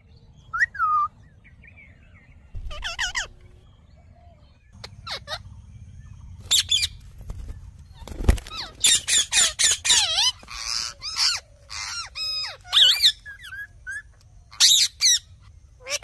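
Rose-ringed (Indian ringneck) parakeets calling: a series of short, pitch-gliding squawks and warbling chatter. The calls come singly at first and run together densely from about nine to thirteen seconds in. A sharp thump comes about eight seconds in.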